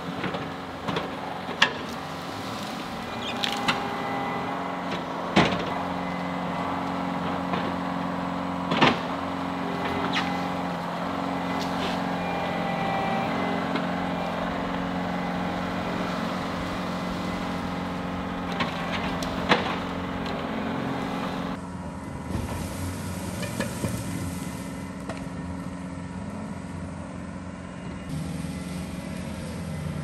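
John Deere 333G compact track loader's diesel engine running steadily under load as its debris grapple drags a fallen tree trunk, with several sharp cracks and snaps in the first two-thirds. About two-thirds through, the engine becomes fainter and more distant, with a steady high hiss added.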